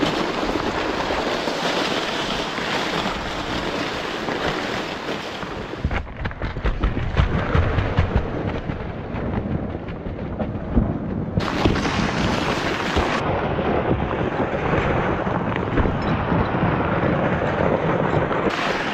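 Steady hiss of freezing rain and wind buffeting the microphone, with knocks and crunches of footsteps on icy snow. About six seconds in, the sound turns heavier and more rumbling.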